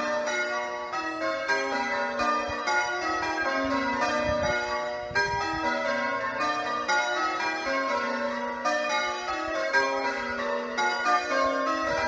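A ring of eight church bells, six of them cast by Warner in 1913 and two newer trebles, being rung in English change ringing: a steady, continuous stream of bell strikes, each ringing on over the next.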